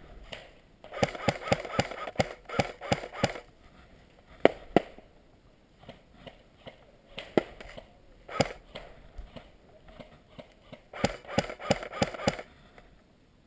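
Airsoft guns firing: a rapid string of sharp shots about a second in, a few single shots in the middle, and another rapid string near the end.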